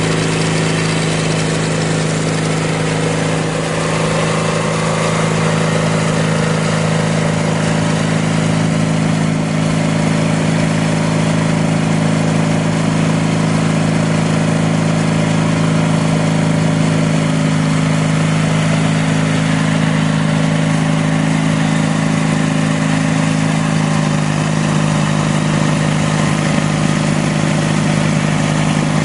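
Sears Roper GT18 garden tractor's 18 hp Briggs & Stratton horizontal twin running steadily, driving a 42-inch shaft-driven snowblower that is throwing snow.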